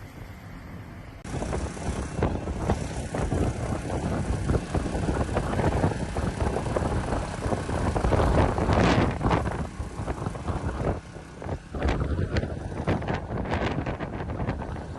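Wind buffeting the microphone in gusts, a rough rumbling rush that swells and dips, starting abruptly about a second in.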